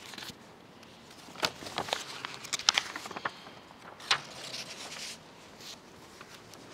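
Sheets of paper rustling and being shuffled at a lectern microphone. Several sharp clicks and knocks come between about one and four seconds in, then quieter rustling.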